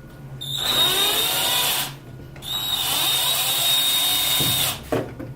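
Cordless drill driver turning a Wolfcraft 90-degree right-angle screwdriver adapter to back out a screw, run twice, each time spinning up to a steady high whine. A short click comes near the end.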